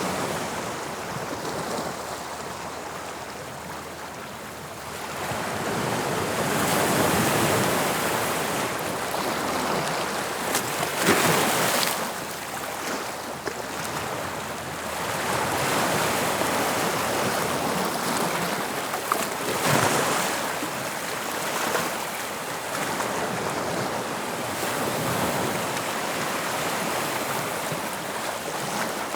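Sea waves breaking on the shore, a steady wash of surf that swells and ebbs as each wave comes in, with one louder crash about eleven seconds in. A little wind mixes with the surf.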